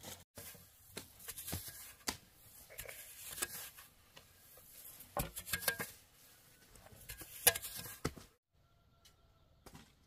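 Irregular scraping and knocking of a small rake working garden soil, in quick uneven strokes, stopping abruptly near the end.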